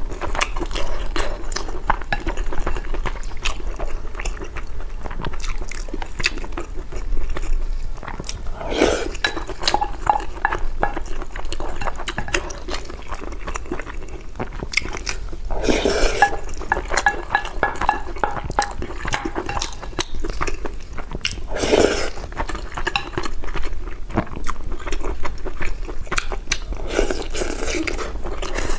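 A person eating braised pork over rice up close, with wet chewing and biting mouth noises throughout. Louder, longer noises come about every six seconds.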